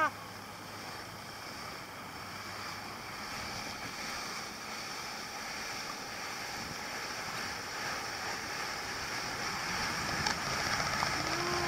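Boat running at speed: steady rush of water from the foaming wake and wind on the microphone, with a faint low engine hum.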